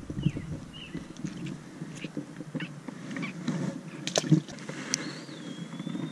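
Handling and water noises as a small fish is let go from a landing net at the water's edge, with a few short bird chirps about half a second in and a long whistled bird call near the end.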